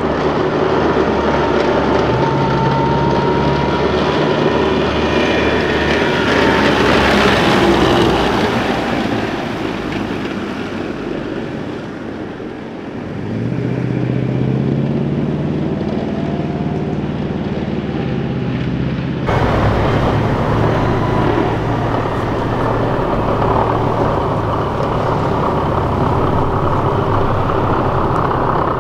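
Diesel engines and running gear of a convoy of armored vehicles, a tracked CV90 infantry fighting vehicle and wheeled Piranha 5 carriers, driving past, loudest as one passes close about seven seconds in. Midway a tracked armored vehicle's engine rises in pitch as it accelerates away. Near the end, after an abrupt change, several armored vehicles' engines run steadily while the vehicles stand.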